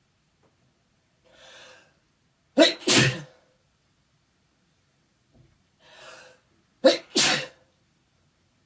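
A person sneezing twice, about four seconds apart, from an allergy to cats. Each sneeze is a quiet in-breath followed by a loud two-part burst.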